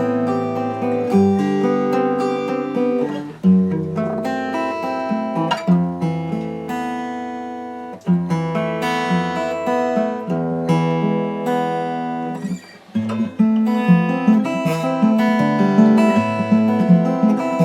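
Old Espana acoustic guitar, fitted with a compensated nut, played as a run of strummed chords that change every second or so. The playing breaks briefly about 8 seconds in and again around 13 seconds.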